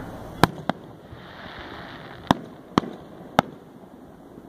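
Aerial fireworks bursting: five sharp bangs, two close together near the start and three more spread through the middle.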